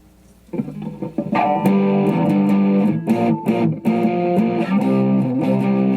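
Gibson Flying V electric guitar played through an amplifier: picked notes and chords begin about half a second in, get louder a second later, and carry on, testing the guitar after its headstock repair.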